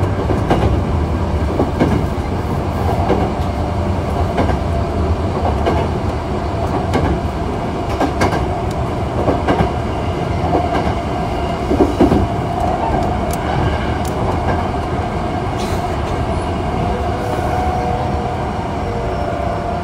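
Hankyu 8000 series electric train with a Toshiba GTO inverter running along the line, heard from inside the car: a steady rumble of wheels on rail, with a few sharp clicks over rail joints and a steady motor tone.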